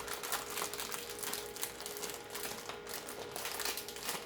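Crinkling and rustling of a Funko Pop Mystery Mini blind pack's packaging being handled and torn open, an irregular run of crackly rustles.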